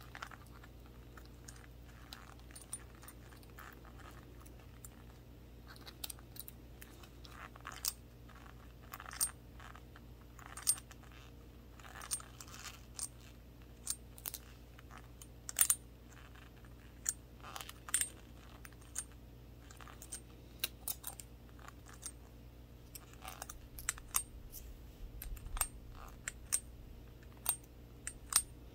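Small glass shot glass with a handle being tapped with gloved fingertips: irregular light taps, each a sharp click with a brief high glassy ring.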